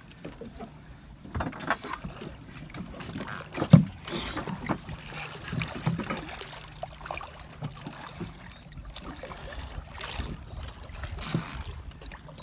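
Water splashing and slapping against the side of a small boat as a hooked bronze whaler shark thrashes alongside. There is a sharp knock against the boat about four seconds in, and a low steady hum runs underneath.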